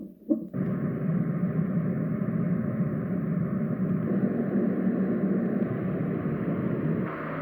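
Roffie white noise machine switching sounds: two short blips about half a second apart, then a steady, low, rumbling noise from its speaker. Near the end it changes to a brighter noise with a steady hum.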